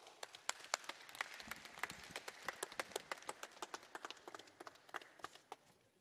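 Applause from a small, spaced-out seated audience, the individual claps standing out, dying away near the end.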